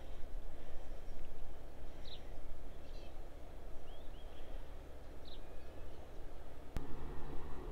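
Outdoor ambience with a steady low rumble and several brief, high bird chirps in the middle. A single sharp click comes near the end.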